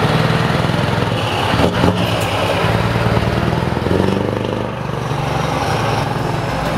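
Scania 164L's 580 hp V8 diesel with an open-pipe exhaust, pulling away and driving off under power. A short sharp knock sounds just under two seconds in, and the engine eases briefly about four and a half seconds in.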